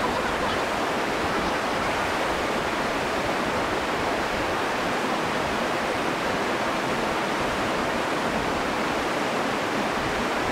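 Steady rush of creek water pouring over a small rocky drop: an even, unbroken whitewater noise.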